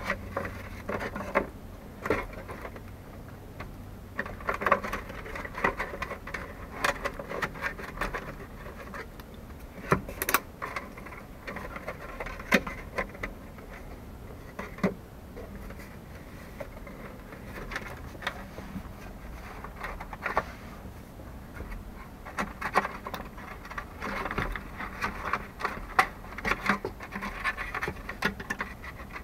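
Hands working the old plastic instrument cluster housing of a 1978 El Camino loose from the dash: irregular plastic clicks, knocks and scraping, coming in clusters with short calmer gaps.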